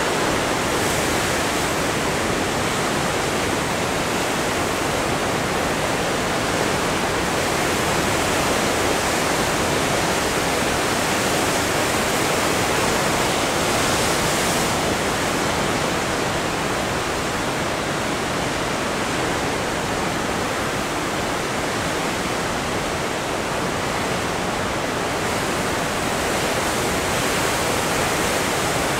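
Heavy ocean surf breaking and washing over shoreline rocks: a steady, dense rush of white water with no single wave standing out.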